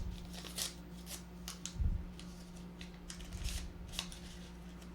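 Scattered light rustles and small clicks of things being handled, over a steady low hum.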